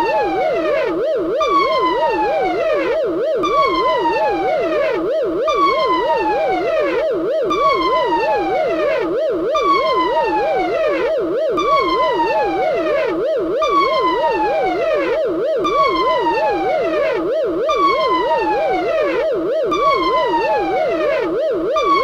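CR-90 corvette (Tantive IV) alarm sound effect with added echo. A rapid warbling tone runs under a falling whoop that repeats about every two seconds, each whoop trailing off in echoes.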